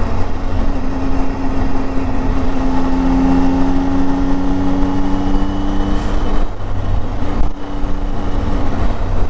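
Motorcycle engine running steadily at cruising speed, with low wind rumble on the microphone.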